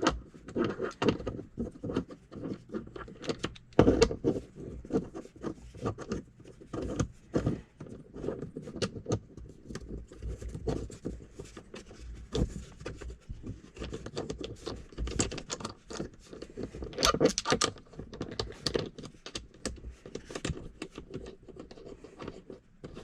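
Irregular small clicks, taps and scrapes of a metal device mount and an Allen key being handled and tightened, with a few louder knocks.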